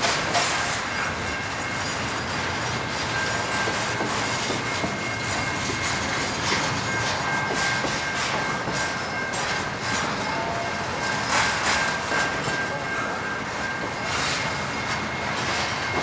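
Double-stack intermodal freight cars rolling past on the rail: a steady rumble of wheels with scattered clicks over joints. A thin, high wheel squeal comes and goes.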